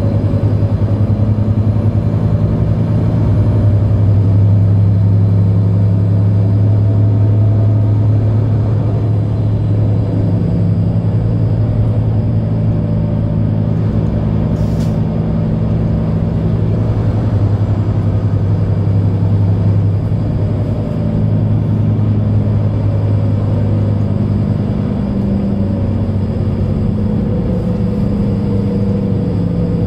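Mercedes-Benz Citaro C2 Ü Hybrid bus's diesel engine idling while the bus stands, heard from inside the passenger cabin as a steady low hum. There is one brief sharp click about halfway through.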